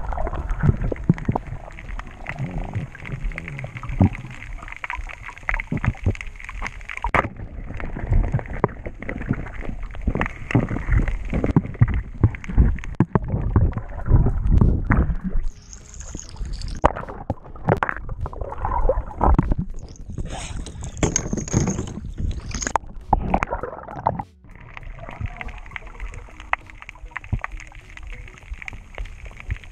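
Muffled gurgling and sloshing water heard through an underwater camera housing, with frequent knocks and bumps. About two-thirds of the way through, a stretch of hissier splashing comes in.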